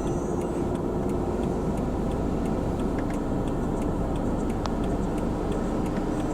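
Steady road and engine noise from a car as heard by a dashcam, with faint regular ticking over it.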